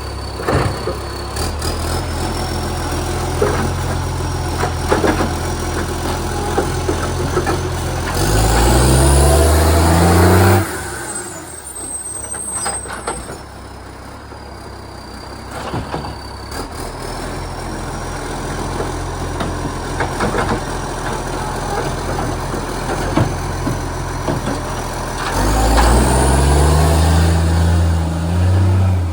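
Garbage truck's diesel engine running loudly through a leaking exhaust pipe, revving up twice for two to three seconds at a time, about eight seconds in and again near the end, with scattered knocks in between.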